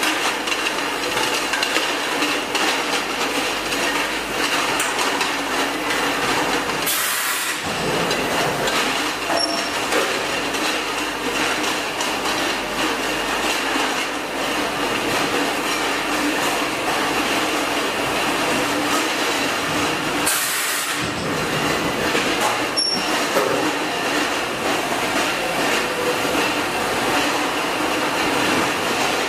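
Can packaging line running: steady machine noise with the clatter of empty metal cans jostling on a rotary table and conveyor. The low rumble briefly drops out twice.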